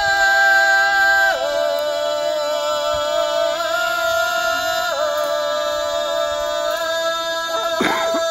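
Women's folk group singing unaccompanied Shopluk two-voice polyphony: a low drone held under a higher voice, in long sustained notes that step to new pitches a couple of times.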